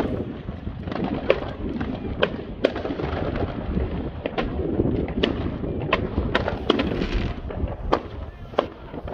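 Fireworks going off: scattered sharp bangs and pops from bursting shells, about one or two a second and irregularly spaced, over a steady low rumble.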